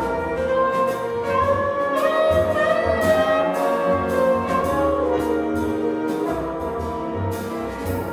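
Live jazz chamber ensemble playing an arranged piece: brass and reeds carry held, moving chord lines over bass and drums, with regular drum and cymbal strokes.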